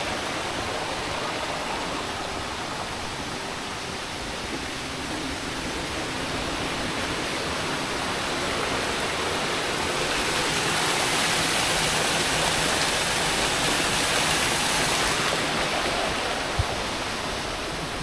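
Steady rush of flowing water, growing louder and brighter a little past the middle, with a single short knock near the end.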